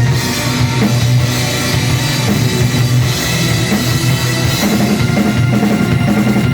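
Live heavy metal band playing loud, with the drum kit prominent in a dense, continuous wall of sound.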